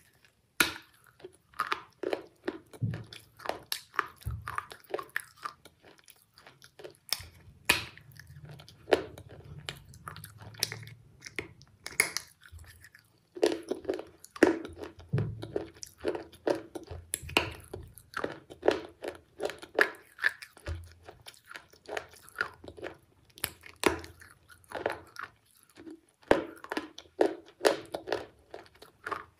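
A person biting and chewing a soft brown block of food: a steady, irregular run of short mouth clicks and smacks.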